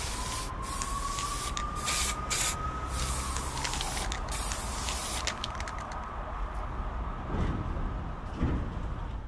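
Several short spray-paint hisses over steady street ambience with a low rumble. The hisses are in the first few seconds. A faint whine rises slightly and then falls away about three to four seconds in.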